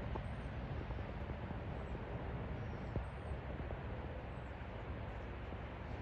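Steady low outdoor rumble with no distinct bird calls, and one faint click about three seconds in.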